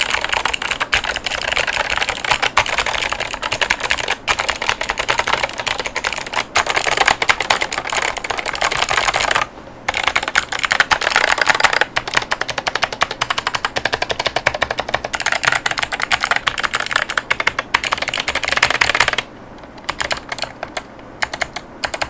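Fast typing on a mechanical keyboard with Kailh White Owl V2 clicky switches (70 g) and ceramic keycaps: a dense stream of clicky keystrokes. It stops briefly about halfway through, and near the end thins to a few scattered keypresses.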